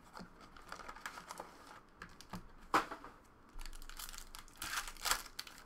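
Hands opening a Panini Prizm trading card box and tearing open a foil card pack: crinkling and tearing of the wrapper, with a sharp crackle about halfway through and a run of louder tearing near the end.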